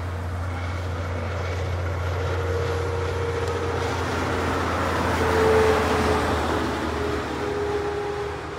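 B-double semi-trailer truck passing at highway speed. Its engine drone and tyre noise build to a peak about five and a half seconds in, then fade as it goes by, with a tone that drops slightly in pitch as it passes.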